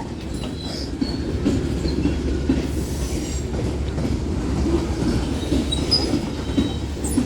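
Cars of a Union Pacific manifest freight train rolling past: a steady rumble of wheels on rail, with a faint high wheel squeal now and then.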